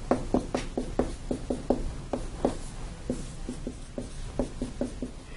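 Marker drawing on a whiteboard: a quick run of short strokes and taps, several a second.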